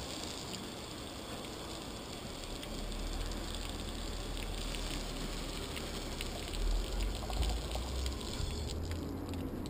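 Outdoor shower water pouring steadily and splashing on a person's head and body. A low rumble comes in about three seconds in and swells louder in places.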